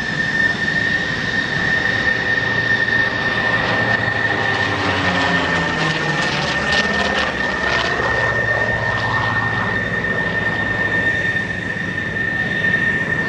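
Vought F4U Corsair's Pratt & Whitney R-2800 radial engine and propeller droning steadily through a display pass, the fighter going by close overhead around the middle, with a sweeping whoosh in its sound as it passes. A thin steady high tone runs underneath.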